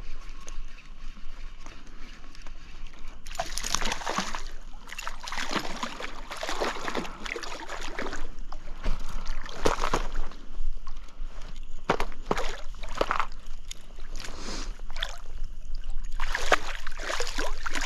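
Hooked brown trout thrashing at the surface of a stream as it is played and netted, in irregular splashes that begin about three seconds in and keep coming, the loudest near the end.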